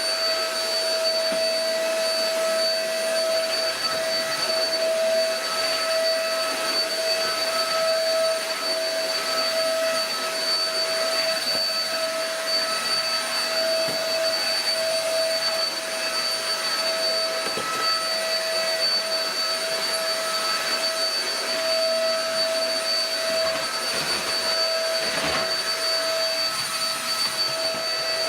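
Shark EP600 bagless cyclonic stick vacuum running steadily with a high motor whine over the rush of suction air, with the occasional faint click of debris.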